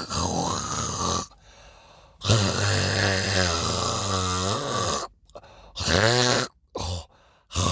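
A person clearing their throat and hawking up phlegm: rasping throat noises in four bouts with short pauses, the longest lasting about three seconds.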